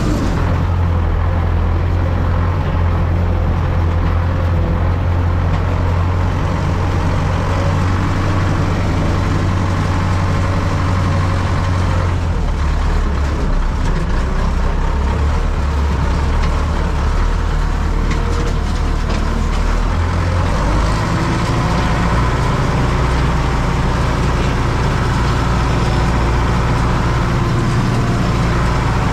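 Farm tractor engine running steadily, with a low drone that shifts in pitch about twelve and twenty seconds in.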